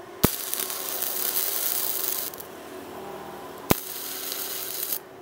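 Weweld Multimig 230 mini MIG welder burning gasless flux-core wire on square tubing: the arc crackles and hisses in two runs of weld. Each run starts with a sharp click, the first lasting about two seconds and the second a little over one. A quieter hum fills the gap between them, and the arc stops near the end.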